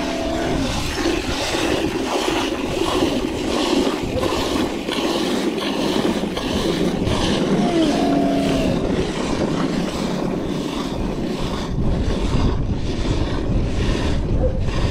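A camel being hand-milked: milk squirting in jets into a stainless-steel pail, about two or three strokes a second. A short pitched call sounds twice, at the start and about eight seconds in.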